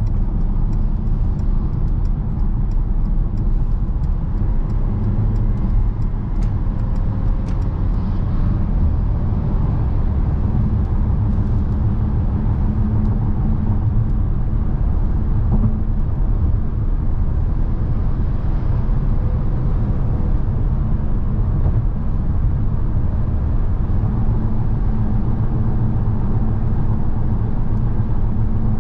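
Mercedes-Benz V 300 d van driving at a steady pace: its four-cylinder turbodiesel and tyre and road noise make a steady low rumble.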